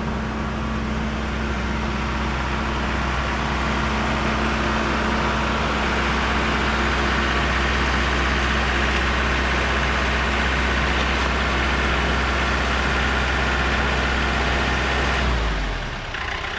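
John Deere compact utility tractor's diesel engine running steadily as it carries a pallet of soil on its front loader; the engine note stops about fifteen seconds in.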